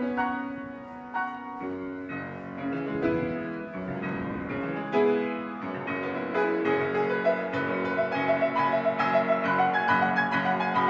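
Background music: solo piano playing a slow classical-style piece, the notes growing busier and quicker in the second half.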